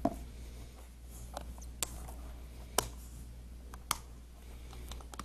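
Plastic deli container lid being worked open by hand: four sharp plastic clicks and snaps about a second apart, over a steady low hum.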